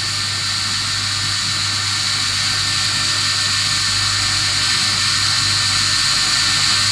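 CNC profile grinder's wheel dry-grinding a carbide brazed cutter, a steady high grinding hiss over a low hum.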